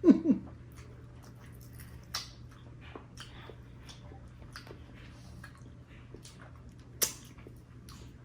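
Close-up eating sounds: chewing and soft mouth clicks and smacks, with a sharper click about two seconds in and a louder one about seven seconds in.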